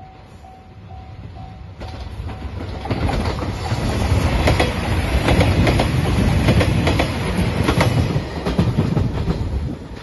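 A level-crossing bell dings about twice a second. Then, about three seconds in, a JR Shikoku 2700 series diesel train passes close by, loud, its wheels clacking over the rail joints. The sound drops off suddenly just before the end.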